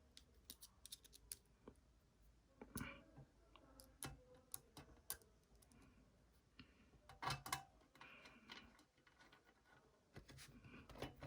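Small screws being driven by hand into a Mac Mini's internal frame with a small screwdriver: faint scattered clicks and short scrapes of the driver tip and metal parts, in several clusters.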